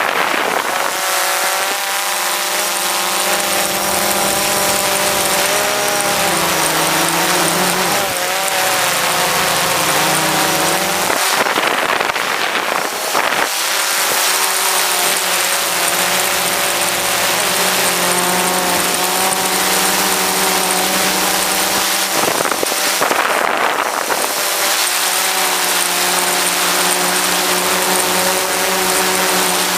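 DJI Phantom 4 quadcopter's motors and propellers humming in flight, several steady tones that now and then slide up or down in pitch as it manoeuvres. Twice, about 11 and 23 seconds in, a rushing noise rises over the hum for a second or two.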